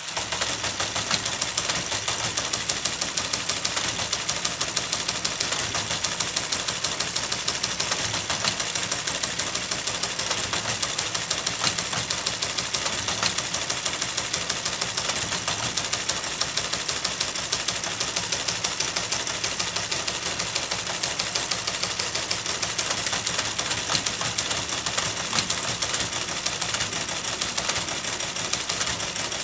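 Lorenz Lo15 teleprinter printing from punched tape: a steady, rapid clatter of type strikes as it types out lines of text on its paper roll.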